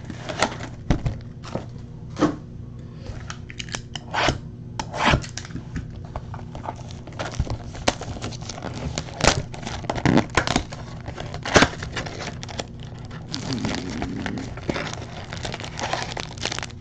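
Wrapping on a trading-card mini-box being torn and crinkled open, with many sharp crackles and rips. Near the end comes a longer rustle as the cardboard box is pulled open.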